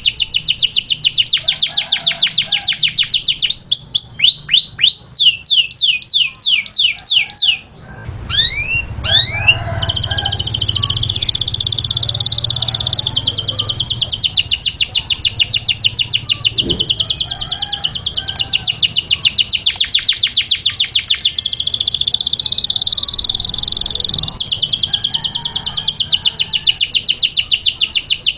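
Canary singing a long, loud song of fast trills: runs of rapidly repeated high notes that switch from one phrase to the next. About four to eight seconds in it changes to slower, downward-sweeping notes, with a brief break near eight seconds before the fast trill resumes.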